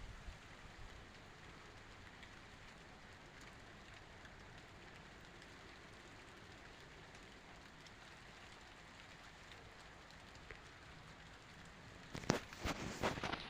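Storm rain falling steadily as a soft, even hiss; about twelve seconds in, a cluster of loud, sharp clicks and knocks starts close to the microphone.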